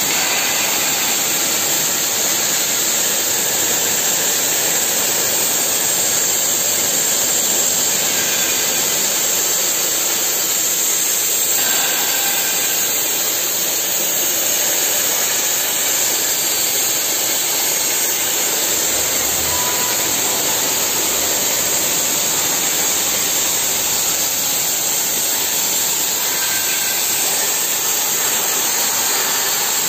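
CNC plasma cutting torch cutting mild-steel plate, giving a steady, loud hiss from the plasma arc and its gas jet.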